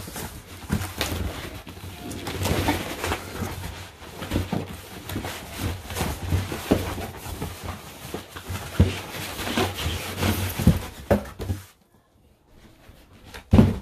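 Cardboard box and packaging being handled right up against the microphone: dense rustling and scraping with many knocks and a low rumble, stopping about three-quarters of the way through, then one sharp knock near the end.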